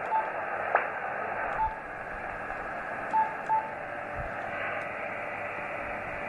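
Yaesu FT-817ND transceiver's speaker giving steady single-sideband receiver hiss with no station on frequency, its HF receive gain set to maximum (255) in the hidden menu. Four short high key beeps sound as the front-panel buttons are pressed, with a single click just under a second in.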